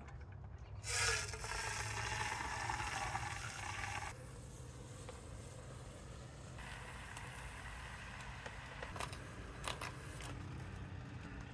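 Liquid nitrogen hissing and boiling off as it is poured from a dewar into a plastic measuring jug, loudest in the first few seconds, then a softer hiss as it is poured into two plastic water bottles. A few light clicks near the end as the bottle caps go on.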